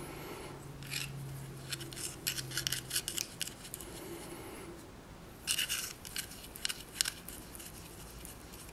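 Quick rasping, scraping strokes, coming in two bursts: one about a second in, another about five and a half seconds in.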